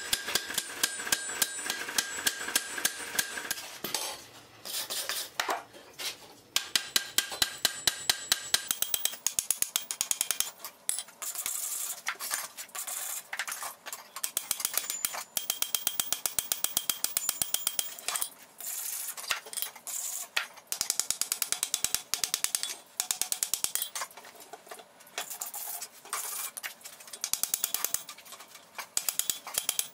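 Hand hammer striking a bright-hot iron bar on an anvil in rapid runs of ringing blows, several a second, with short pauses between runs. A steady high whine sits under the blows for the first few seconds.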